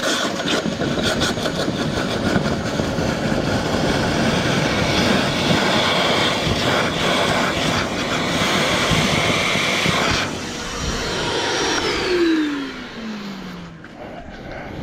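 Wet-and-dry vacuum sucking muddy water out of a hole through its hose, a loud, rough rush of air and water. About ten seconds in the suction noise drops, and a couple of seconds later the motor is switched off, its whine falling in pitch as it winds down.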